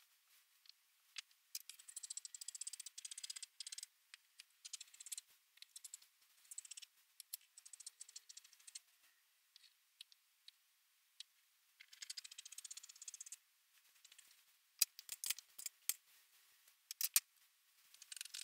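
Fabric scissors cutting through cloth: faint runs of quick, crisp snipping and crackling, with a few sharper clicks of the blades near the end.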